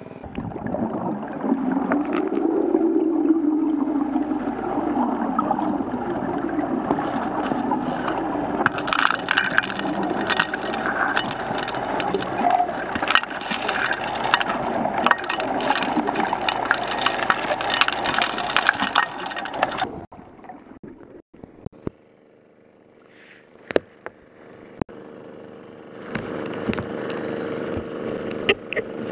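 A suction gold dredge heard underwater: a dense rush with stones and gravel rattling and crackling, loudest in the middle and dropping away after about twenty seconds to a few sharp clicks. Near the end the dredge's small gasoline engine hums steadily.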